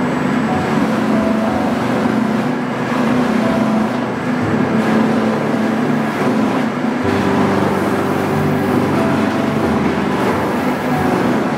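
Drum sander running steadily, a wooden cricket bat pressed against the spinning sanding drum and being sanded.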